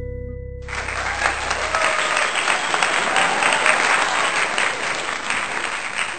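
Audience applause with some cheering voices, following a held final note of a live music recording; the applause fades near the end.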